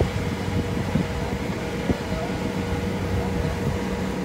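Steady engine drone, a low hum with a faint steady higher whine over it.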